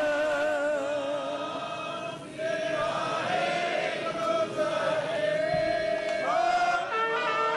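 Gurbani kirtan in Raag Maaroo: a male ragi singing the shabad in long, wavering held notes. The voice dips briefly about two seconds in, then the line goes on.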